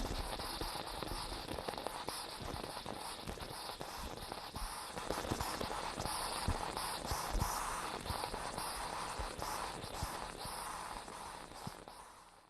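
Moka pot sputtering and gurgling on the heat, a dense crackle of small pops over a steady hiss that fades away near the end.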